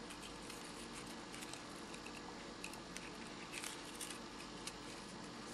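Faint rustling and a few small ticks of folded paper and thread being handled as a thread is tied around the middle of a paper accordion, over steady room hiss.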